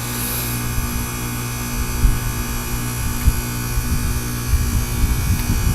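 Goodman heat pump outdoor unit humming steadily while it runs a defrost cycle, melting the ice packed in it, with an irregular low rumble on the microphone underneath.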